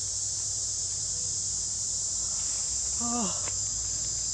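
Steady, high-pitched insect chorus. About three seconds in, a brief call falls in pitch.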